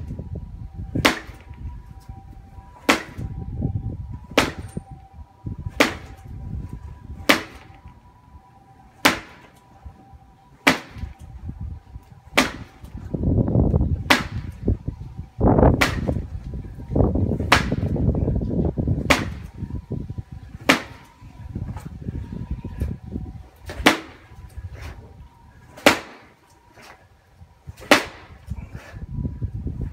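Makiwara, a wooden karate striking post, being punched over and over: a sharp smack about every one and a half to two seconds, with a low, uneven rumble between strikes.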